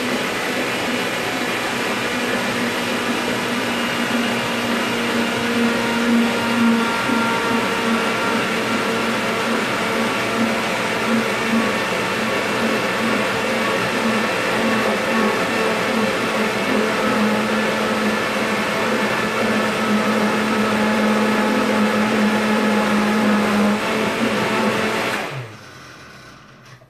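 Vitamix high-speed blender running steadily at full speed, churning a thick avocado, cashew and cacao pudding mixture. It is switched off about 25 seconds in and the motor winds down quickly.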